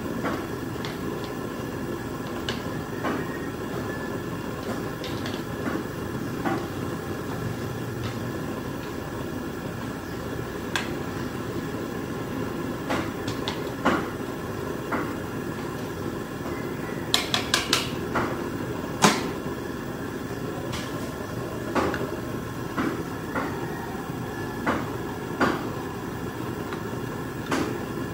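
Scattered sharp knocks and clicks, with a quick run of four about two-thirds of the way in, over a steady low hum.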